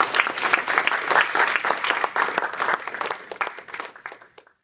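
Audience applauding, the clapping thinning and fading near the end before cutting off abruptly.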